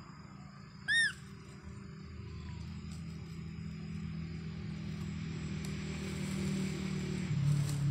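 A single short, high-pitched squeak from a baby macaque about a second in, rising and falling in pitch. Under it runs a low steady hum that slowly grows louder.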